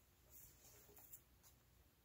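Faint rustling of a plastic pattern bag being handled: a few soft, brief crinkles over near silence.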